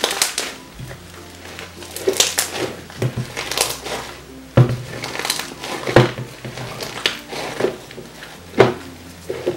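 Thick blue slime with small beads mixed through it, squeezed and kneaded by hand in a plastic tub: an irregular string of sticky squishes and crackling pops, the sharpest about two, six and eight and a half seconds in.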